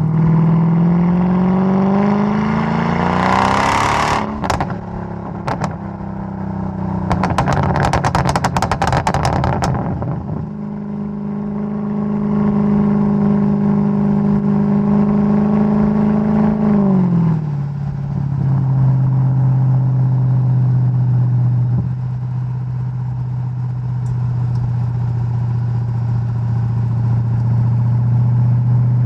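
Mercedes-Benz E55 AMG W211's supercharged 5.4-litre V8 exhaust accelerating with rising revs, then popping and crackling on the overrun: a few sharp cracks about four seconds in and a dense burst of crackles a few seconds later. The engine then holds a steady note, drops in revs and settles to a steady lower note.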